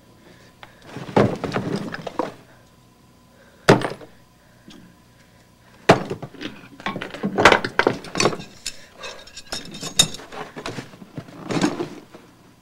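Objects being handled and knocked together on a hard surface: irregular clattering and thudding in several bursts, with two sharp single knocks about four and six seconds in.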